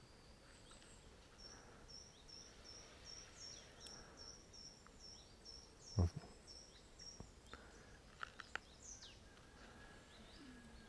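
A bird repeating a short high chirp about two to three times a second for several seconds, over quiet outdoor ambience. A single low thump sounds about six seconds in, followed by a few faint clicks.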